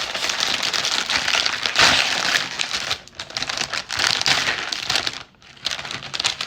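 Cookie packaging being opened by hand: rapid crinkling and crackling of the wrapper, with brief pauses about three seconds in and again near the end.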